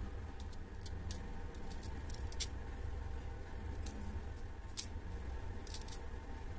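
Light, irregular metallic clicks and ticks of steel tweezers picking small watch-movement parts out of a stainless wire-mesh cleaning basket, over a faint steady low hum.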